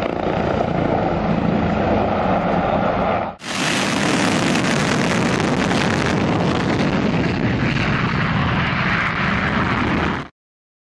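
Aircraft engine noise: a steady drone with several held tones, then, after a sharp cut about three and a half seconds in, a louder rushing roar with much more hiss that stops abruptly near the end.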